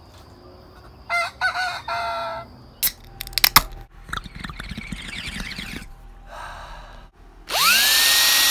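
A rooster crows about a second in, a drink can snaps open with sharp clicks and hisses, and near the end a cordless drill spins up with a quickly rising whine that settles into a loud steady pitch.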